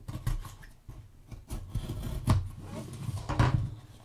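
Small kraft-cardboard box being handled and opened: cardboard rubbing and sliding, with several knocks and taps, the loudest a little past two seconds in and again about three and a half seconds in.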